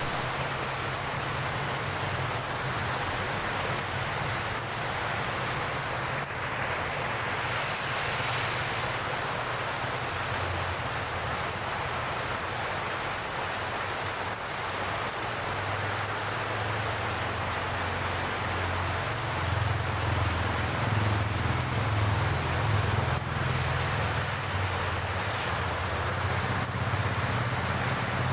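Heavy typhoon rain falling steadily, a dense even hiss, with a low steady rumble underneath that grows stronger about ten seconds in.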